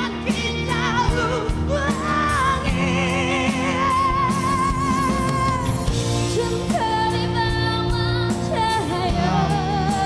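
Live performance of a Malay pop ballad duet: a singer holding long notes with wide vibrato over a band with guitar. The longest held notes come around the middle and near the end.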